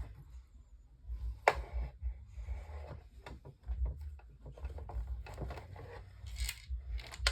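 Irregular small clicks, taps and rustles of hands handling screws and the plastic parts of a desk fan being put back together, with low bumps throughout and a sharper click about a second and a half in.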